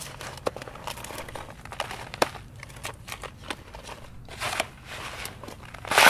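Hands mixing dry crushed clay and grog: gritty crunching and rustling with scattered small clicks as the crumbs are stirred. There are louder scooping scrapes about four and a half seconds in and near the end.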